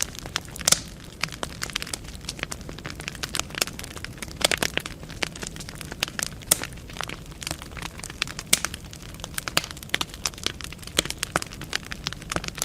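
Wood fire burning in a fireplace: logs crackling and popping at irregular moments over a low steady rumble of flame, with a sharp pop about three-quarters of a second in.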